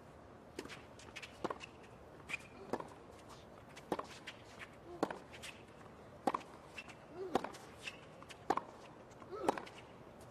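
Tennis ball hit back and forth on a hard court, starting with a serve: sharp racquet strikes and ball bounces roughly once a second, a few strikes paired with a short grunt from a player.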